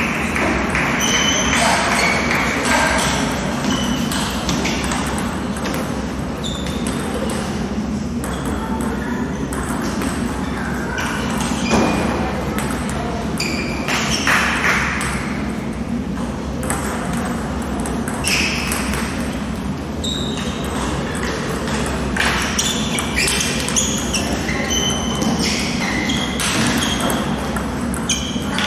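Table tennis balls ticking on bats and tables at many tables across a large hall, in an irregular scatter of short pings, over a murmur of voices.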